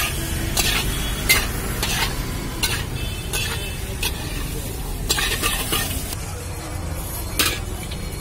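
Long steel spatula scraping and clinking against a large iron kadhai as sabudana khichdi is stirred and tossed, in short irregular strokes about one every half second to second, over a steady low rumble.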